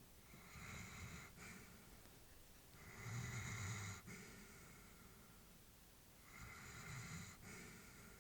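Elderly Labrador retriever breathing quietly in her sleep: three slow breaths about three seconds apart, the middle one the loudest.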